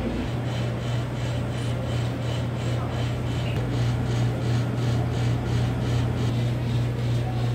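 Steady low hum from a machine or ventilation, starting abruptly just after the start, over room noise, with faint regular ticks about three times a second.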